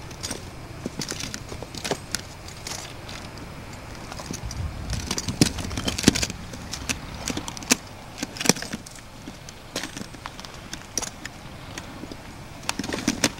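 Footsteps crunching and scuffing on a rocky trail, in irregular steps, with knocks from the handheld camcorder. There is a busier, louder stretch of steps and knocks about five to six seconds in.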